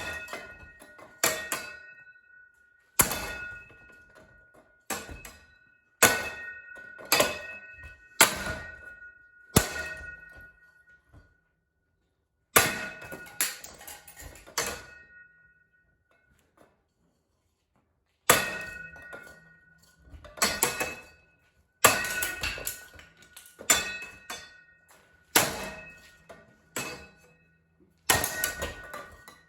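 A baseball bat striking a ceiling fan again and again. Each hit is a sharp crack followed by a brief metallic ring. The hits come about one a second, with two short pauses near the middle.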